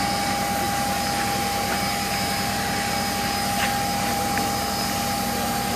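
Fire engine's pump running with a steady hum and a constant high whine, under the rush of a hose spraying a water fog.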